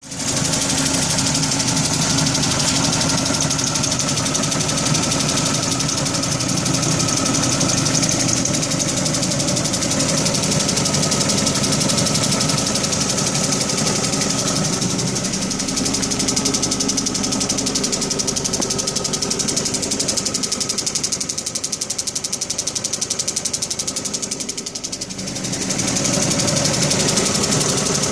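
2005 Dodge Neon engine running with a steady, fast ticking, which dips for a few seconds near the end and then comes back up. The tick appeared after the head, exhaust manifold and intake gaskets were replaced; the owner suspects a ticking lifter, a blown exhaust manifold gasket or a broken manifold bolt.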